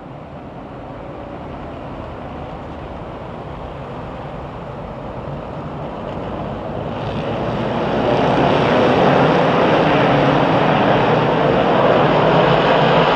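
A pack of 358 dirt modified race cars with small-block V8 engines, getting steadily louder as the field comes around, then running loud and steady at full throttle from about eight seconds in as they fire for the start.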